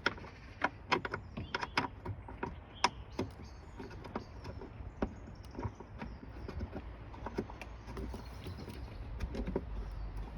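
Plastic lugs being screwed by hand onto a tail light's mounting studs, giving irregular light plastic clicks and knocks, busiest in the first few seconds.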